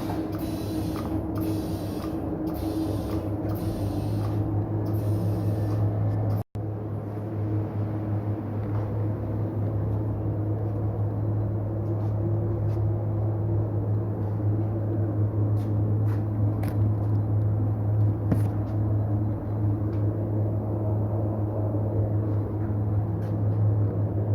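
Steady low electric hum of tyre-workshop machinery during tyre mounting, with a few faint clicks and taps.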